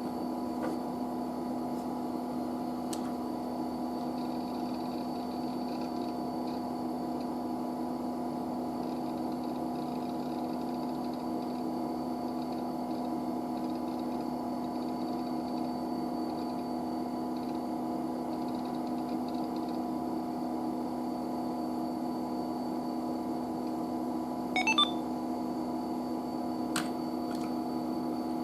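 IBM 9535 running: a steady hum of several fixed tones with faint, high, intermittent chirping. A short burst of clicks about three-quarters of the way in is the loudest moment, followed by a single click a couple of seconds later.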